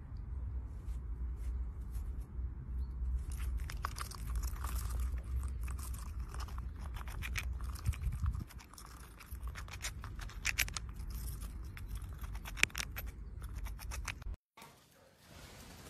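Rapid crisp clicks and crunches of a Eurasian red squirrel gnawing at a nut held in its paws, over a low rumble that fades about halfway through. The sound cuts off suddenly near the end.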